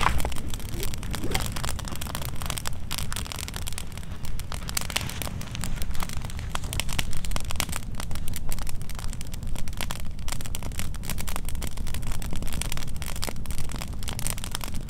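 Wood campfire burning, crackling with many irregular sharp pops and snaps over a steady low rumble.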